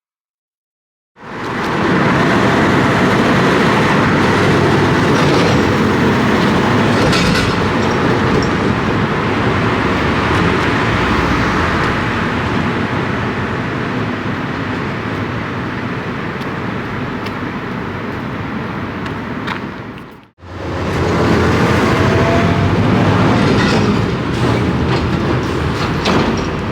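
Loud, steady rumble of a large vehicle passing close by. It starts suddenly about a second in, breaks off abruptly about 20 seconds in, and picks up again.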